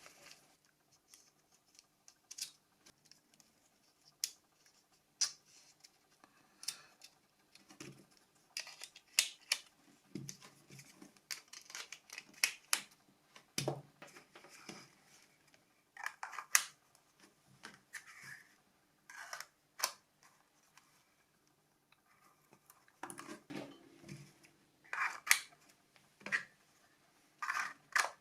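Scattered small clicks, taps and short scrapes of plastic phone parts being handled and fitted together as a Nokia 5210 is reassembled, with quiet gaps between.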